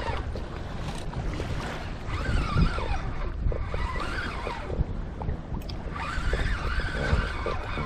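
Wind and sea noise on the microphone of a kayak on open water, with a spinning reel whirring in three stretches as line is worked against a hooked fish.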